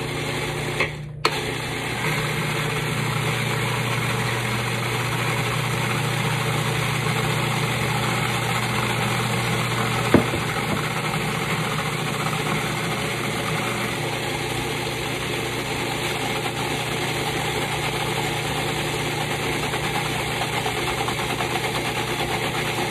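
Old Cuisinart food processor motor running steadily as it chops cilantro, culantro, garlic and onion into sofrito. It cuts out for a moment about a second in, then runs on, with one sharp click about ten seconds in.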